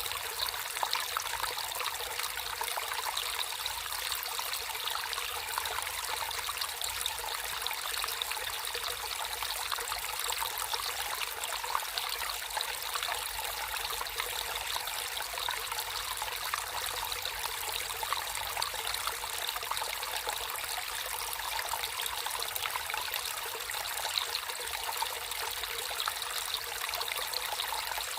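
Water trickling and flowing steadily over stones in a small stream, a continuous splashing burble.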